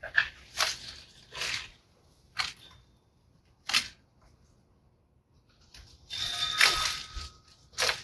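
Long-handled loppers snipping through dry rose canes, each cut a short sharp snap, about six in all. About six seconds in comes a second or so of rustling and scraping of dry branches.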